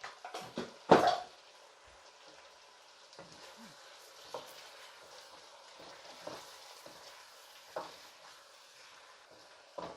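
Chicken curry sizzling in a frying pan while a spoon stirs it, with a few loud knocks of the spoon against the pan in the first second, then a steady sizzle broken by occasional soft knocks.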